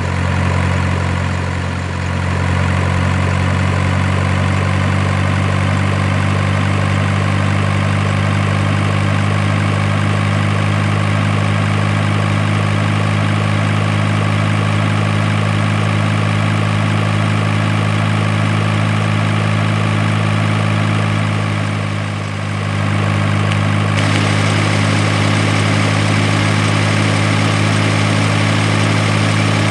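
A heavy vehicle engine running steadily at a constant pitch, with a brief dip in loudness about three-quarters of the way through.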